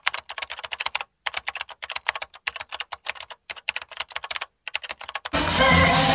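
Computer keyboard typing sound effect: rapid key clicks in three runs with short pauses between them. About five seconds in, loud live stage music cuts in abruptly.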